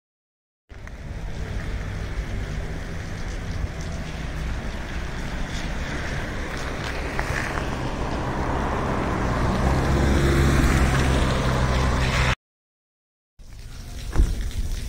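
Steady rushing noise, heaviest in the low end, typical of wind buffeting a phone microphone outdoors; it grows louder, then cuts off abruptly. After about a second of silence, a lighter hiss with a few small taps follows.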